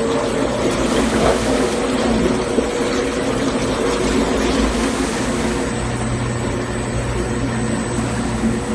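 Motors of a 500-litre homogenizer mixing tank running, a steady mechanical hum and whir with a thin high whine; a deeper hum comes in about two-thirds of the way through.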